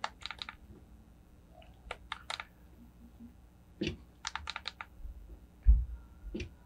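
Handheld Canon camera being operated: short quick runs of sharp mechanical clicks from its shutter and buttons, with a dull handling thump near the end.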